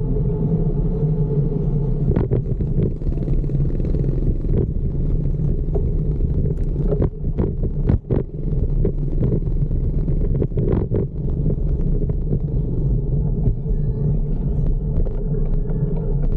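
Riding noise from a camera carried on a fixed-gear bicycle: a steady low rumble of wind and road, broken by a run of sharp clicks and knocks through the middle.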